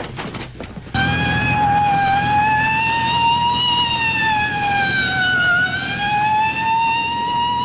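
A few short clicks, then about a second in a police patrol car's wailing siren starts suddenly and keeps going. It slowly rises in pitch, dips near the middle and climbs again over the car's engine and road noise, the sound of a patrol car in pursuit.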